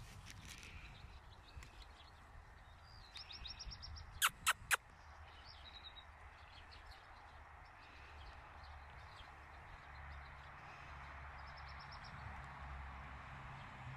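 Small birds chirping and trilling faintly outdoors over steady background noise. Three sharp clicks in quick succession about four seconds in.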